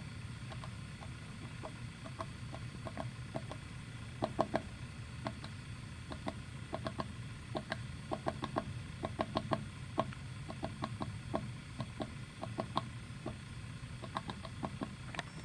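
Woodpecker pecking at wood: irregular sharp taps, some single and some in quick runs of several a second, over a steady low hum.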